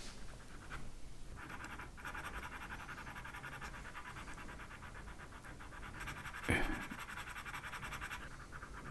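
Faber-Castell Pitt pastel pencil scratching across Pastelmat paper in quick, rapid back-and-forth strokes, with one brief louder sound about six and a half seconds in.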